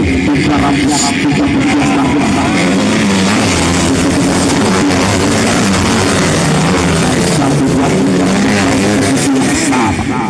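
Loud rock music with guitar, running steadily.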